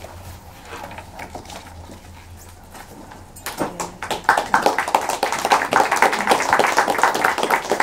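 Audience applauding. A few scattered claps come first, then full applause swells about three and a half seconds in.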